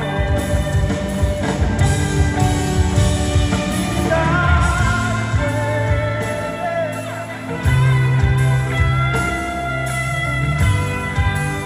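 Live rock band playing, with electric guitars, keyboard and drums under a sung melody.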